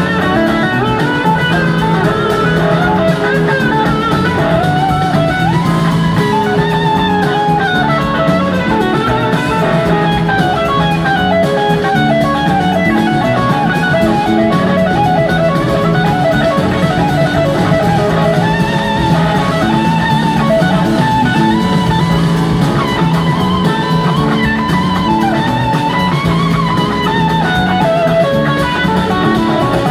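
Rock band playing live: electric guitars trading wavering, gliding lead lines over a drum kit, steady and loud throughout with no singing.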